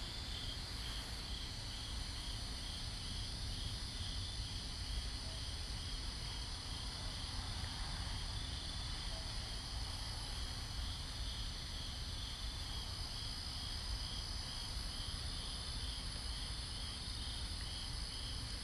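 Night-time insect chorus, crickets chirping steadily, a pulsing chirp with a constant high trill above it.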